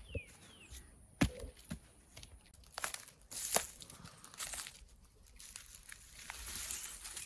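Rustling and crinkling with a few sharp knocks, from gear being handled or steps on dry ground. A bird chirps briefly at the start.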